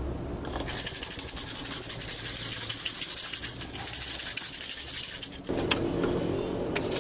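A hand rattle is shaken rapidly and without a break for about five seconds, giving a dense, high, hissing rattle that stops abruptly.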